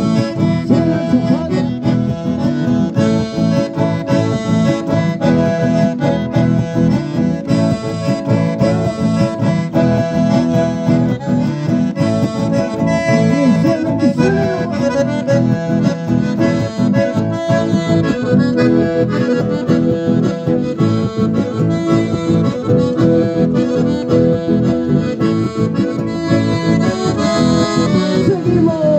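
Button accordion playing an instrumental folk tune with an acoustic guitar strummed in a steady rhythm underneath, played live.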